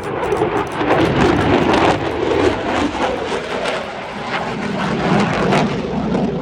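Military jet flying past at an airshow, a loud steady roar of jet engine noise with a crackling edge, its pitch slowly falling as the aircraft passes.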